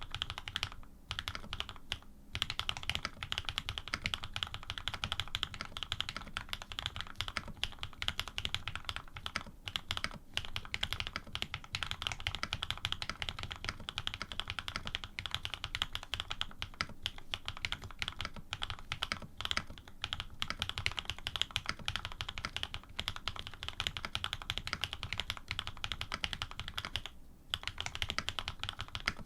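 Continuous fast typing on an AR87 custom mechanical keyboard with lubed Cream-stem switches in Cherry housings, PBT keycaps and an aluminium plate, with a few brief pauses.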